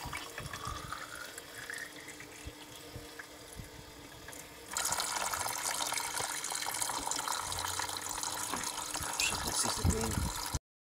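A thin stream of fresh distillate running from a pot still's condenser outlet pipe and trickling steadily into a bucket. It grows louder and closer about halfway through, then cuts off abruptly just before the end.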